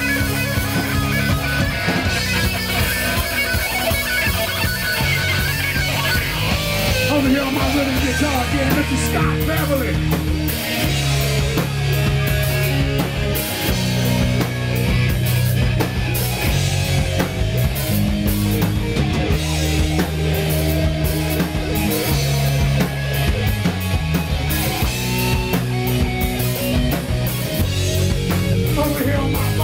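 Live rock band playing: electric guitar, bass guitar and drum kit with cymbals, loud and steady throughout.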